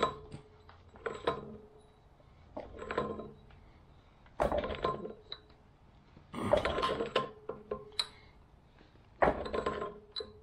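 Large Kobalt channel-lock pliers clinking and scraping on a brass hose-barb fitting as it is tightened by hand into a pressure-washer pump's brass inlet: about seven short metal clanks with a slight ring, spaced a second or so apart.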